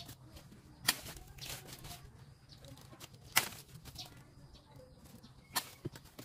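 Hand pruning shears snipping through mango stems, three sharp snaps about a second, three and a half seconds and five and a half seconds in.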